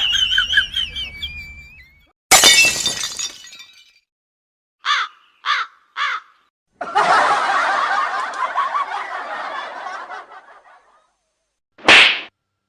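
A string of separate comedy sound effects. A warbling squeal fades out, then comes a sudden crash like something breaking, three quick squeaky chirps, a few seconds of dense busy noise, and a short sharp blast near the end.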